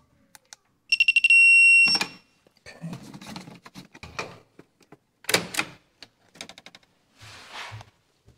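A handheld electrical tester beeping: a rapid run of short high beeps that runs into one steady beep lasting about a second. Clicks and rattles of tools and wires being handled follow.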